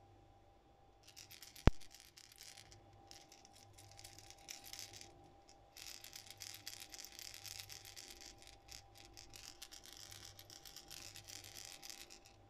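Steel weight balls rattling inside a DUO Realis Pencil 65 topwater pencil lure shaken by hand: a quiet, fast, dense clicking that starts about a second in, with a short break around the middle.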